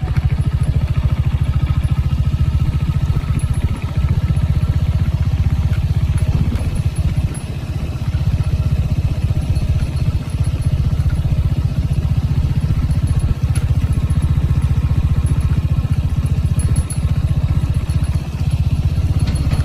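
Royal Enfield Hunter 350's single-cylinder engine running at a steady idle, its exhaust giving an even, rapid beat.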